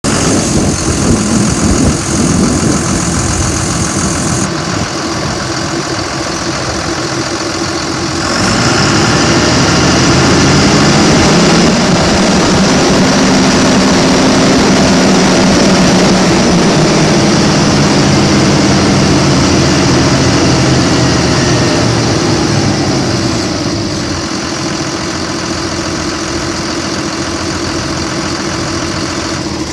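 2002 Gradall's Cummins ISB-190 turbocharged inline-six diesel engine idling, then revved up about eight seconds in and held at higher speed for around fourteen seconds before settling back to idle.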